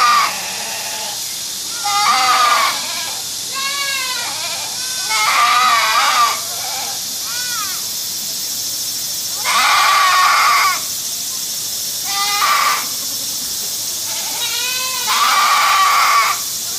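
Goats bleating repeatedly: about seven wavering calls a second or two apart, some short and some drawn out to about a second, over a steady background hiss.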